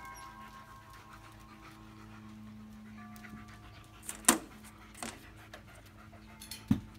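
Dog panting, with sharp clacks as a large dog steps onto a raised metal-framed mesh cot: the loudest a little past four seconds in, a lighter one about a second later and another near the end.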